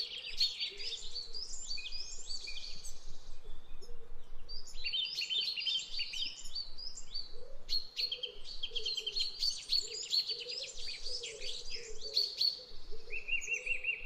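Several birds singing at once, a dense chorus of overlapping rapid chirps, twitters and trills, with a fainter lower call running underneath.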